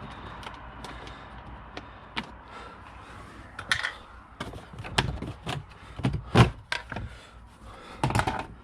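Plastic interior trim on a Mercedes Sprinter van being worked loose by hand: a string of clicks, knocks and rattles, growing busier after a few seconds, with the loudest knock about six seconds in.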